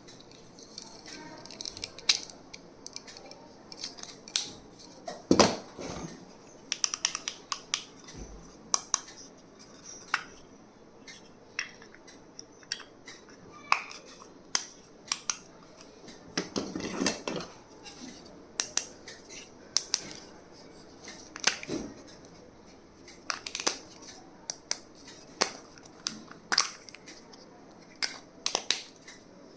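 Stationery and its packaging being handled by hand: irregular clicks, taps and rustles, with a longer rustle about halfway through.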